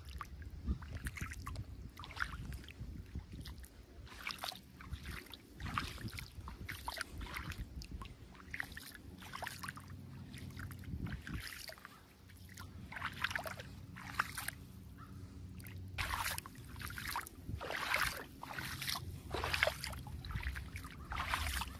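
Bare feet wading through shallow water over sand: irregular small splashes and sloshes, several a second and busier in the second half, over a steady low rumble.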